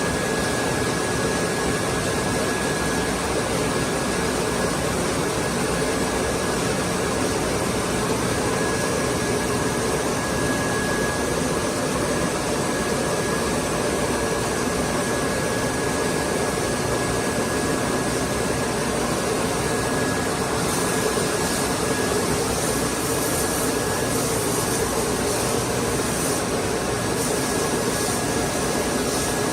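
Wide belt sanding and edge-rounding machine running steadily with its vacuum hold-down, an even whirring rush with a thin high whine over it.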